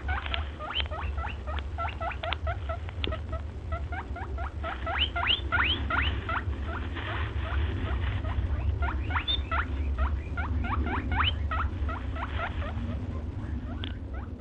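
Small animals squeaking: a dense run of short, quickly rising squeaks, several a second and overlapping, over a steady low hum.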